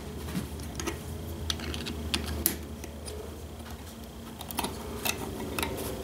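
Light, irregular clicks and taps of small metal distributor parts being handled and fitted by hand, over a steady low hum.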